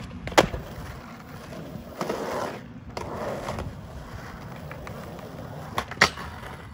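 Skateboard on a concrete skatepark. A loud crack comes from the board about half a second in, then the wheels roll over the concrete. Near the end there are two sharp clacks as the board pops onto a metal flat rail.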